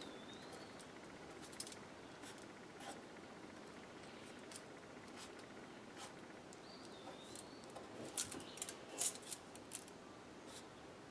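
Felt-tip marker drawing on dried painted bowtie pasta and cardstock: faint scratching and scattered small clicks, busiest about eight to ten seconds in, with a couple of short squeaks from the marker tip.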